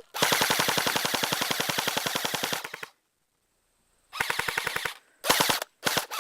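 Airsoft gun firing on full auto: one long burst of rapid shots lasting about three seconds, a pause of over a second, then a shorter burst and a couple of quick short bursts near the end.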